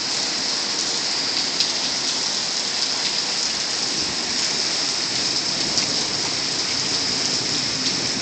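Heavy downpour, rain pouring down hard in a steady, loud hiss with no letup.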